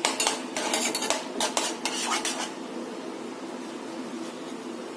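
A spoon stirring and scraping in a metal pan of half-fried potatoes, mixing in food colour. There are quick clinks and scrapes through the first two seconds or so, then it quietens.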